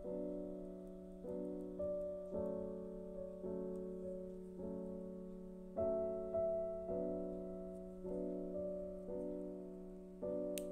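Slow, soft background piano music: gentle chords struck about once a second and left to fade, over a steady low held note.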